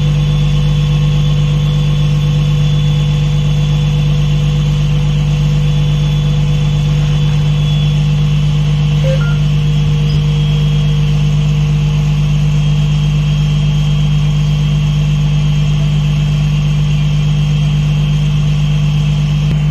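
Fishing boat's inboard diesel engine running steadily, heard from inside the wheelhouse: a loud, even drone with a strong low hum.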